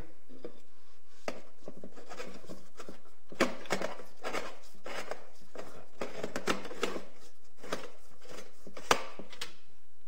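Metal gallery of a vintage Perfection kerosene heater being set onto the burner and twisted into place: irregular metal-on-metal scrapes and clicks, with one sharper click near the end.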